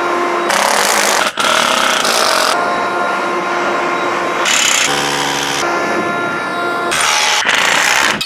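Ryobi cordless leaf blower running, blowing concrete dust off the slab. Its motor whine and rush of air are steady but change abruptly in level and pitch several times.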